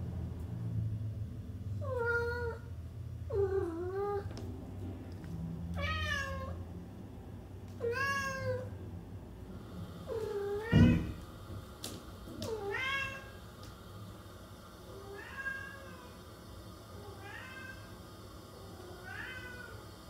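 Siamese cat meowing repeatedly: about nine drawn-out meows roughly two seconds apart, the later ones fainter. A low thump sounds about halfway through.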